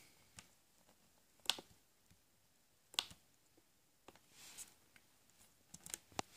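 Faint, sharp computer mouse and keyboard clicks: two single clicks about a second and a half apart, a brief softer rustle, then a quick run of several clicks near the end.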